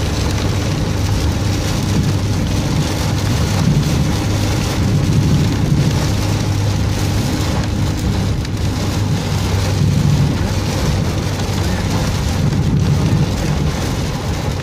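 Torrential rain pelting the car's windshield and roof, heard from inside the cabin as a loud, unbroken hiss, over the steady low drone of the car moving.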